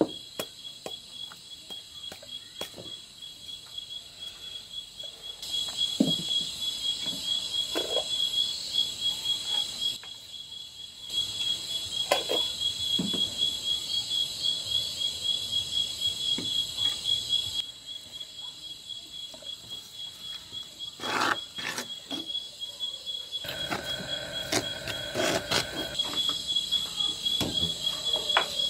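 Crickets chirring steadily in a fast-pulsing high trill. Now and then come short knocks and clinks of a metal ladle against clay pots.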